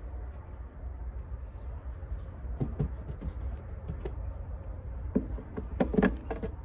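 Wooden beehive parts knocking and scraping as the hive is worked open and frames are handled, over a steady low rumble. The knocks are scattered, with a louder cluster of them near the end.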